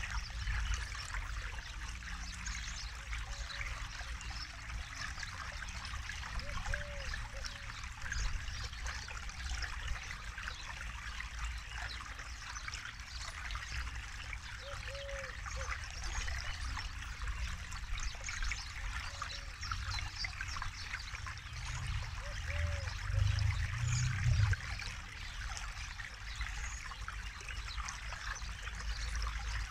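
Forest river flowing: a steady rush and trickle of water. A short low note recurs about every four seconds, and a brief low rumble swells up about three-quarters of the way through.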